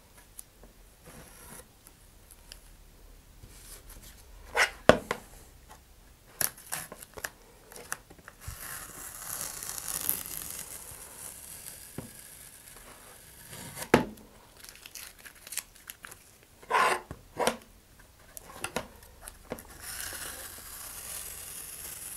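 Masking tape being peeled off a cardboard rocket body tube along the edges of freshly laid epoxy fin fillets: a hissy tearing sound in two long pulls, about a third of the way in and again near the end. Sharp crinkles and crackles come in between as the sticky used tape is handled and balled up.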